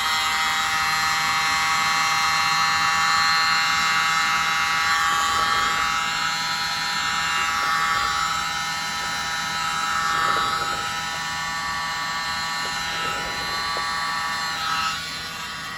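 Small electric mini blower running with a steady high-pitched whine, blowing across freshly poured acrylic paint to spread it into cells; it cuts off near the end.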